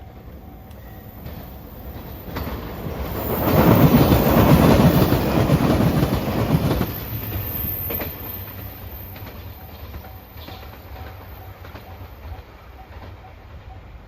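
A train passing at speed over a level crossing: the rush and clatter of wheels on rails swells to a peak about four seconds in, holds for about three seconds, then fades. Behind it the crossing's warning bell rings steadily in an even, repeating ding.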